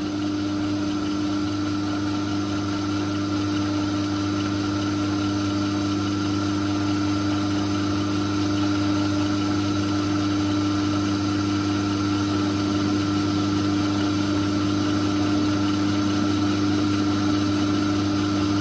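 Myford metal lathe running steadily while turning a bolt: a continuous hum from its electric motor and headstock drive, with one strong steady tone.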